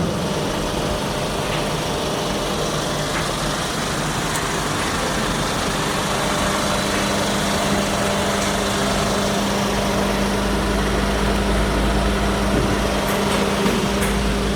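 Kia car engine running steadily, a constant mechanical hum with a steady tone in it; a deeper rumble comes up about ten seconds in.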